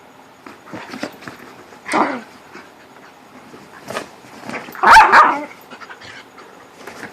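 Whippets vocalising in rough play: a bark about 2 s in and a louder, longer bark-like call about 5 s in, with small scuffling noises and softer yips between.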